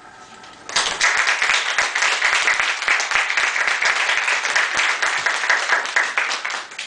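Audience applauding, starting suddenly about a second in and dying away near the end.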